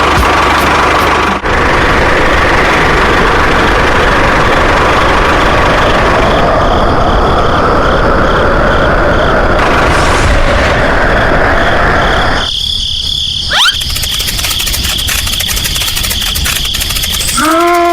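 Loud, steady engine-like running noise that drops and changes character about twelve and a half seconds in, with a brief rising squeal soon after.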